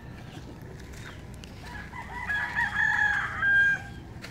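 A rooster crows once, starting about two seconds in and ending on a held high note, over a few faint bird chirps.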